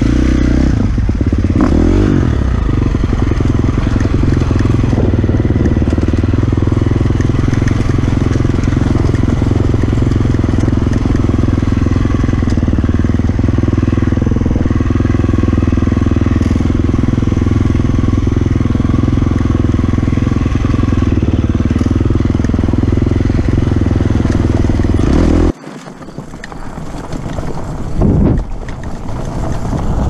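Dirt bike engine running at a steady speed while riding a trail. About 25 seconds in the sound drops off abruptly and returns quieter, rising briefly near the end.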